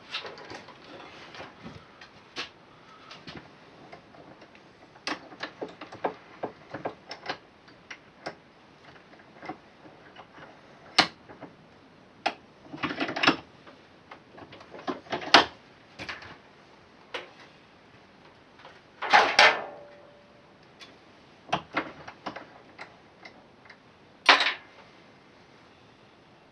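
Hand tools on metal mower parts: sharp clicks and knocks at irregular intervals, with short, denser bursts of clicking about twelve seconds in and again around nineteen seconds.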